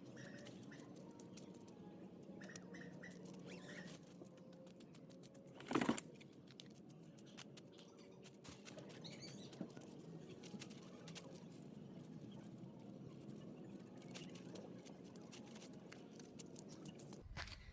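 Faint handling noise from pitching a tent: light rustling and scattered small clicks, with one louder knock about six seconds in.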